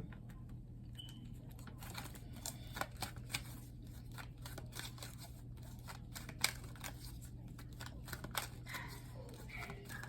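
Tarot cards being handled and shuffled: soft, irregular clicks and flicks, over a steady low hum.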